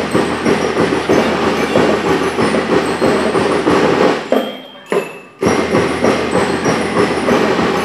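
Elementary-school drum and lyre corps playing loudly, its marching drums beating rhythmically. About halfway through, the sound fades and nearly drops out for about a second, then comes back suddenly.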